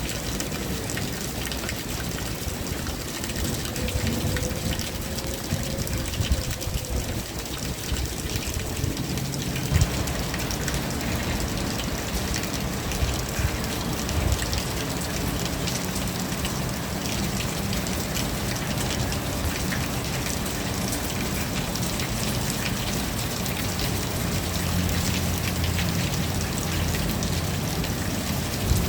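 Steady rain falling, with occasional louder drips or taps standing out. A low steady hum runs underneath from about ten seconds in.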